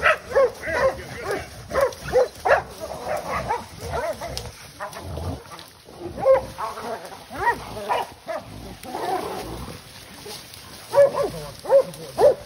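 Hunting dogs barking and a wild hog squealing in a string of short, repeated calls as the dogs catch and hold the hog in the brush.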